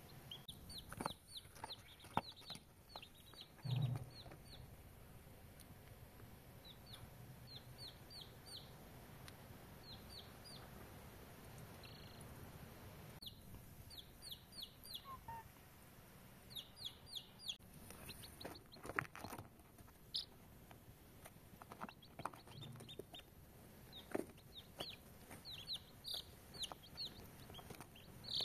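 Baby chicks peeping: short, high cheeps that drop in pitch, coming in quick runs of three to six with pauses between. A few soft knocks are heard among them.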